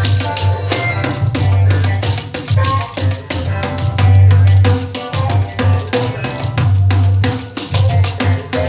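A 12-inch nylon-headed pandeiro played in a quick, steady rhythm along with a recorded song with a pulsing bass line.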